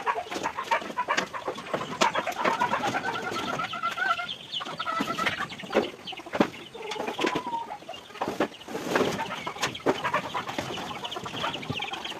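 Chickens clucking and calling in a coop, with scattered sharp knocks throughout.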